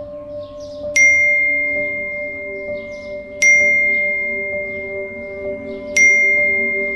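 Three bright bell-like phone notification chimes, about two and a half seconds apart, each starting sharply and ringing out slowly, over a low steady drone.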